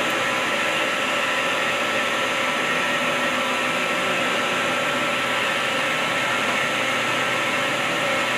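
CNC lathe running: a steady whirring hum with a few constant tones and no distinct knocks.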